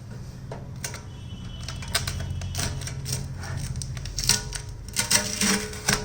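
Adhesive tape being pulled off the back of a microwave oven to free its power cable: irregular crackling and clicking that grows busier and louder in the second half, over a steady low hum.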